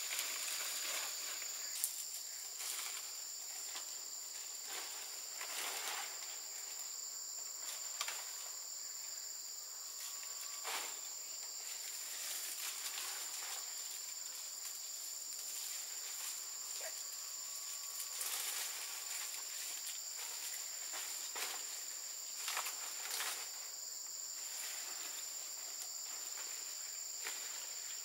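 Steady high-pitched chorus of insects, with irregular rustles and crackles of palm leaves being handled and laid as roof thatch.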